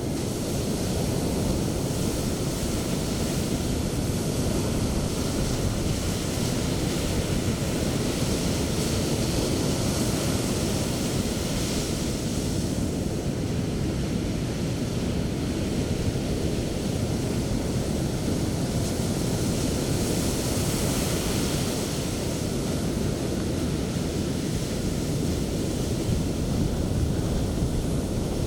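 Ocean surf breaking on a beach: a continuous rush of waves over a steady low rumble, swelling louder as waves break about ten seconds in and again about twenty seconds in.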